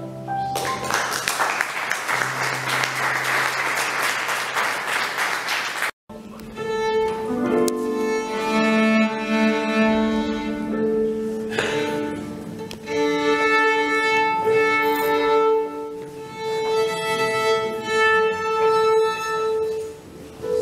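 Instrumental background music. For the first six seconds it sits under a dense rushing noise that cuts off abruptly, then a bowed violin plays slow, long-held notes.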